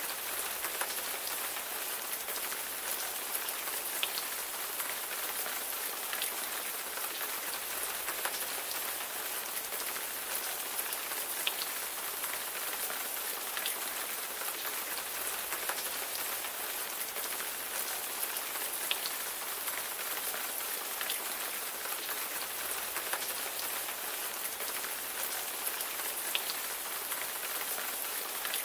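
Steady rain, with a dense patter of raindrops and occasional sharper individual drop ticks.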